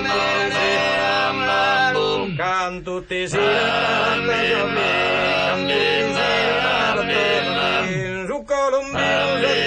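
Background music: men singing, with steady held low notes under the melody. The singing breaks off briefly twice.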